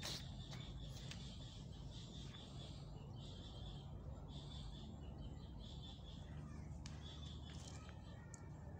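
Small birds chirping on and off in short high bursts, over a low steady rumble.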